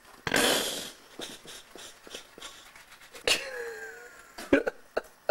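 A man brushing his teeth with a mouthful of toothpaste foam. A short, loud sputter comes near the start, followed by scattered light scrubbing clicks and, about three seconds in, a muffled wavering hum through the foam.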